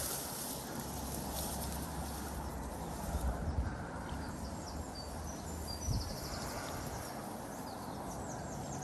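Outdoor lakeside ambience: a steady low rumble, with small birds chirping in short trills and a soft thump about six seconds in.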